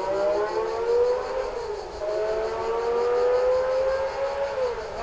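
Ferrari 312 B2's 3.0-litre naturally aspirated flat-12 revving high under acceleration. Its pitch climbs, drops about one and a half seconds in as it shifts up, then climbs again to another upshift near the end.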